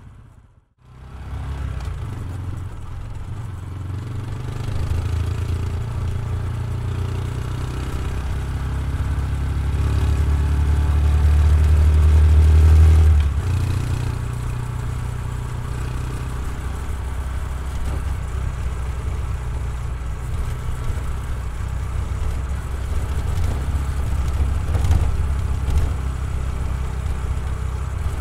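Honda Super Cub C125's air-cooled single-cylinder four-stroke engine and exhaust while riding. After a brief dropout at the start, the low engine note builds steadily louder until about halfway through, then drops abruptly and settles to a steady running note.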